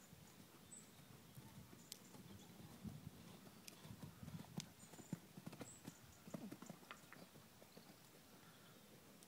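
Faint hoofbeats of a horse cantering on a soft arena surface: a run of dull thuds that is most dense through the middle and fades near the end.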